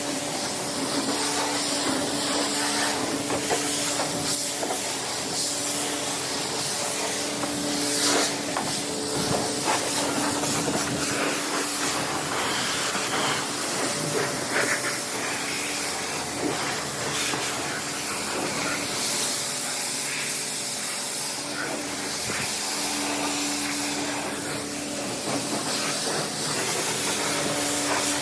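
High-pressure car-wash spray wand hissing as water is sprayed over a car, with a steady hum that comes and goes.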